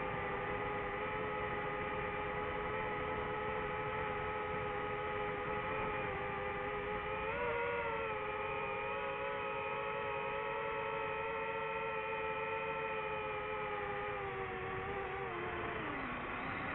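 DJI FPV drone's motors and propellers whining steadily, several tones at once, with a short rise in pitch about halfway and a dip in pitch near the end as the throttle changes.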